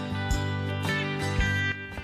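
Background instrumental music with long held notes and a steady beat.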